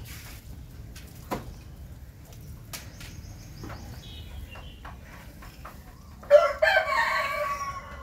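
Rooster crowing once, about six seconds in, a single crow lasting about a second and a half. Before it there are only a few faint taps.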